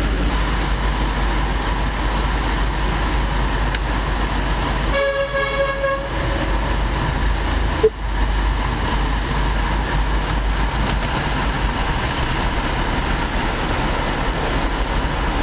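Steady cabin noise inside a Subaru Ascent with its systems running, a low rumble with a faint steady hum. About five seconds in, a horn-like tone sounds for about a second, and a single sharp click follows near eight seconds.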